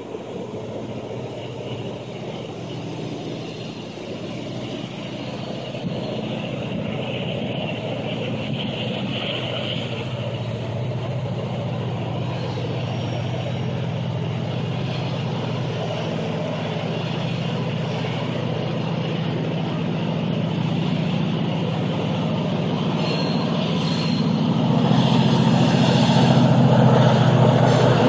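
Norfolk Southern PR43C diesel locomotives approaching, their engine drone growing steadily louder, and loudest near the end as the lead unit arrives and wheel-on-rail noise joins in.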